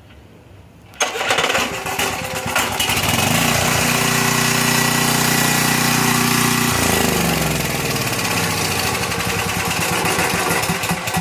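Coleman Powermate 6250 generator's Briggs & Stratton engine pull-started, catching about a second in and then running steadily, its note shifting about two-thirds of the way through. It starts right up now that a push rod that had come off the rocker arm has been put back in place.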